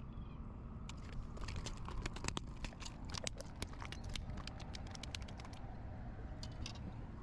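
A small flounder flopping on the concrete, a rapid run of sharp slaps and taps for a few seconds, then a few more near the end, over a low steady rumble.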